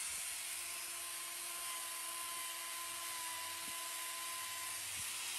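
Angle grinder with a hoof-trimming disc running steadily, grinding down a cow's hoof sole: an even hiss over a faint motor whine.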